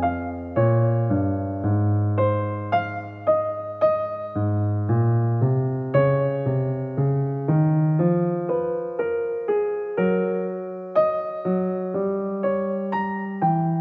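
Background music on a piano-like keyboard: a slow melody of single notes, about two a second, each struck and fading, over low held chords.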